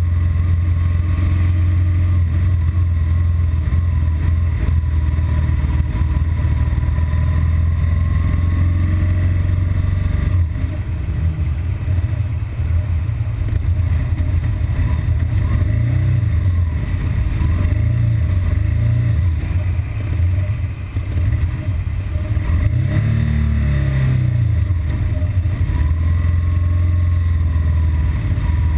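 BMW R1200GS Adventure's boxer twin running steadily, then from about ten seconds in turning rough and uneven. Several short throttle blips come through the middle and a bigger rev about three-quarters through, before it evens out. This is the intermittent rough-idle and stalling fault that shows up once the bike hits traffic after a long fast run.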